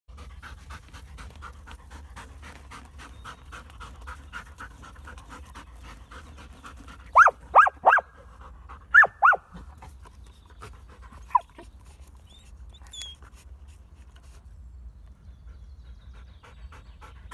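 Belgian Malinois panting fast and rhythmically, about three breaths a second, while digging in loose soil. About seven seconds in come five short, loud, high squeals that rise and fall in pitch, with one fainter squeal a few seconds later.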